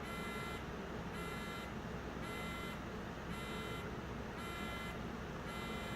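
Besam RD4 security revolving door's alarm beeper sounding in a steady run of half-second electronic beeps, about one a second, stopping near the end.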